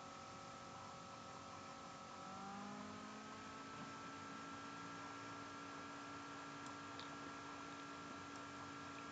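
Faint steady electrical hum made of several tones, which glide to a new, partly lower set of tones a little over two seconds in.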